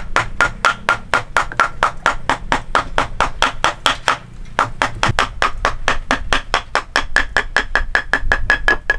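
A hammer striking rapidly and evenly, about five blows a second, each blow ringing with a note that rises slightly in pitch toward the end.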